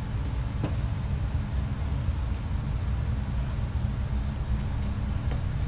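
Pot of saluyot (jute mallow) soup at a rolling boil, a steady low bubbling rumble, as a wooden spoon stirs it with a couple of faint knocks against the pot.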